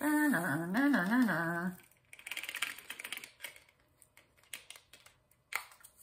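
A woman's voice warbling up and down in pitch for nearly two seconds, imitating a dial-up modem. After that come quick light clicks and rustles of diamond painting drills and their plastic bags being handled.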